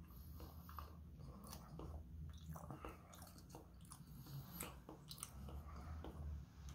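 Faint chewing of soft raw scallop sashimi: scattered soft, wet mouth clicks and smacks. A low steady hum runs underneath.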